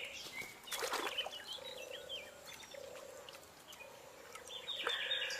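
Marsh ambience: a steady-pitched trilling call repeated in short bouts, with small birds chirping above it and a brief noisy burst about a second in.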